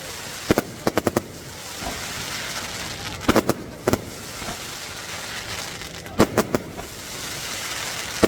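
Fireworks going off in quick clusters of sharp bangs and cracks, about a second in, again between three and four seconds, and again past six seconds, over a steady hiss of outdoor crowd noise.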